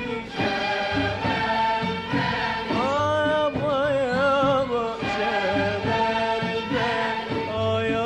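Background music: an Arabic song with a wavering, ornamented melody held over a steady accompaniment.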